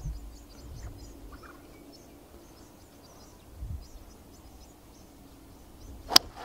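Quiet outdoor background with faint bird chirps, then near the end a single sharp crack of a golf club striking the ball on a tee shot.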